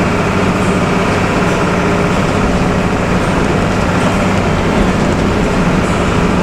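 Bus diesel engine droning steadily at cruising speed, heard from inside the passenger cabin, with a deep steady hum under even road noise.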